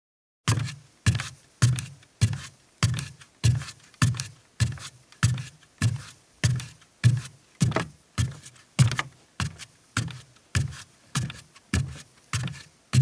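Bare feet walking at a steady, even pace on a wooden deck, a little under two steps a second, each step a dull thud of the heel with a light slap of skin on the boards.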